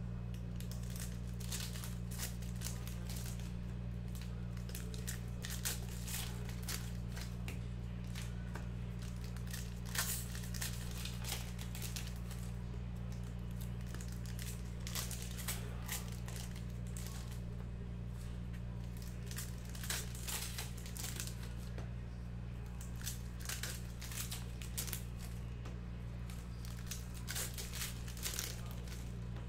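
Packs of 2021 Panini Donruss Football trading cards being opened and handled: plastic wrappers crinkling and tearing in irregular bursts throughout, over a steady low hum.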